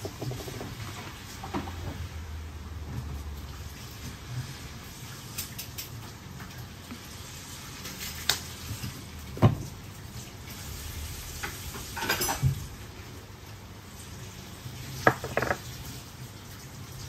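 Ceramic bowls and plates clinking and knocking as they are handled and set down on a wooden table: a handful of separate knocks with quiet between, the loudest about halfway through.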